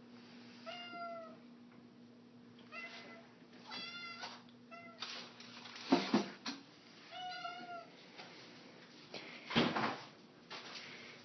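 A small young cat meowing for food: about four short, high, arching meows, spread over the stretch. There are two louder knocks, one around the middle and one near the end.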